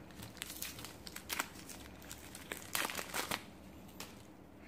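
Crinkly plastic wrapping being crumpled and torn off a Zelfs crystal pod surprise egg by hand: a run of irregular crackles that is densest about three seconds in.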